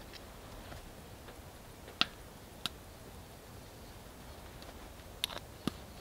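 Small glass spice jars clicking as they are handled and shaken over the meat: four sharp clicks, the loudest about two seconds in and two more near the end, with little else audible.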